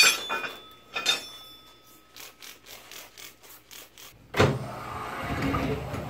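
Metal clanks as a dually truck wheel is set against the bead breaker of a 1967 Coats 1010 tire changer, then a run of light clicks. About four and a half seconds in a sharp thump, followed by a low rumble as the air-powered bead breaker presses on the tire to break the bead.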